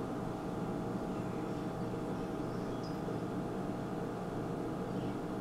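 Steady hum with a few faint steady tones and no distinct events: kitchen room tone.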